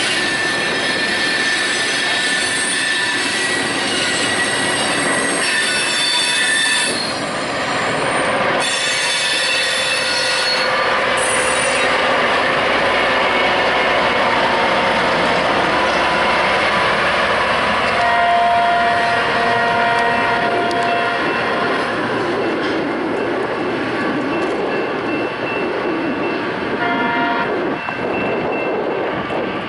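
Loram rail grinder train rolling past at close range, its diesel engines and machinery running loudly, with the steel wheels squealing in several high, steady tones that are strongest in the first dozen seconds.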